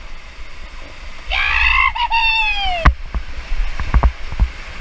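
Rushing whitewater of river rapids, a steady noise under everything. About a second in, a person lets out a long high whoop that slides down in pitch, followed by several short dull thumps.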